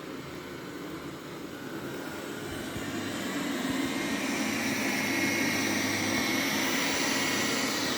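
Roborock Q7 Max robot vacuum running, its suction fan whine growing louder over a couple of seconds and then holding steady. The vacuum is raising its suction on carpet.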